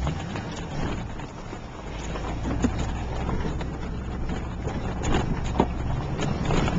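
Pickup truck driving over a rough desert dirt track, heard from inside the cab: a steady engine and tyre rumble with a few sharp knocks and rattles as it jolts over bumps.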